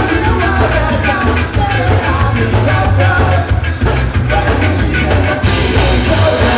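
Ska-punk band playing live and loud: electric guitars, bass and drums with sung vocals, the drums keeping a steady driving beat.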